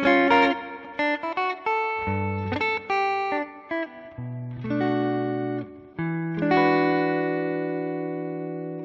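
Electric guitar fitted with Zexcoil pickups (Tribucker humbuckers with a Zexcoil single coil in the middle) playing a short lick of single notes and chords. It ends on a chord left ringing, which is damped right at the end.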